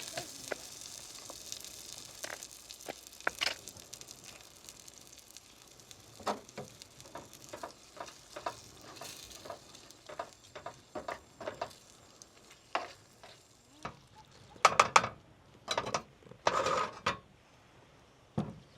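Food sizzling in a pan, the sizzle dying down over the first few seconds, while a utensil stirs and taps against the pan. A few louder knocks of the utensil come near the end.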